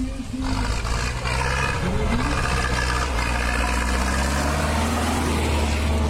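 Zetor tractor's diesel engine running steadily under load as the tractor drives across a dirt course.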